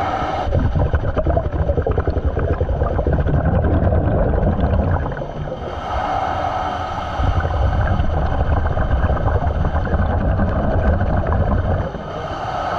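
A diver's breathing regulator heard underwater: long bubbling exhales, broken by a short inhale with a steady hissing whistle about six seconds in and another near the end.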